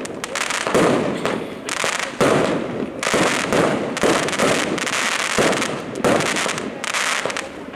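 Fireworks going off in quick succession: a sharp bang about once a second, with dense noise carrying on between the bangs.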